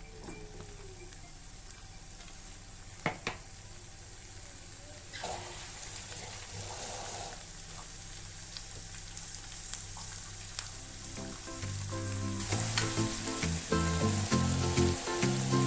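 Chopped shallots, garlic, ginger and whole spices sizzling in hot oil in a pan as they are stirred, the sizzle starting about five seconds in and growing louder. A couple of sharp clinks come about three seconds in, and background music rises near the end.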